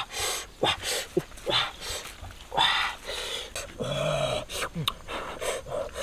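Puppies eating fish from a woven basket: irregular chewing and smacking noises with a few short, pitched cries.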